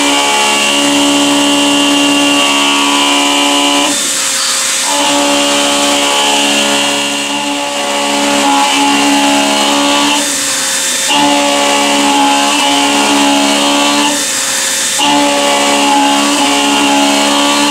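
End mill in a CNC milling machine cutting a metal block, a steady pitched whine with many overtones that breaks off briefly about three times.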